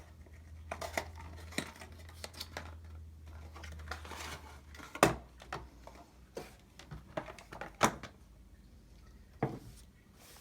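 Clicks, taps and rustles of a tablet's packaging and accessories being handled during unboxing, with a sharper knock about five seconds in.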